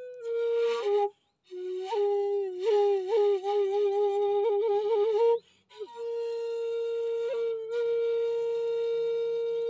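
Bamboo shakuhachi playing a slow solo melody with a breathy tone: a short phrase, then a longer one ornamented with quick pitch flicks and bends, then after a brief breath a long held note.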